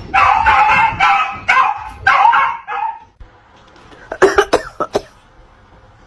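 A dog barking in a quick run, about two barks a second for some three seconds; after a short pause, a brief cluster of short, sharp barks.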